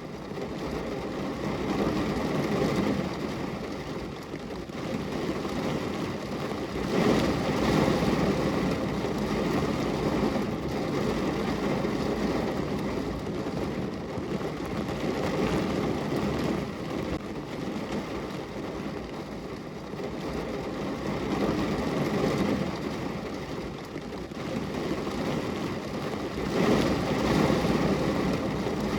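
Steady rain falling, a dense hiss that swells and eases every few seconds.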